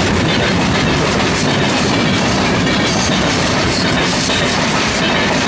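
Passenger train coaches passing at speed close by: a loud, steady rush of wheel and air noise, with wheels clattering over the rail joints.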